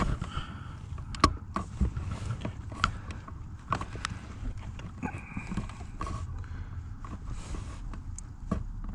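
Scattered plastic clicks and knocks of hands working at the accelerator pedal's wiring plug, trying to unplug it, over a low rumble.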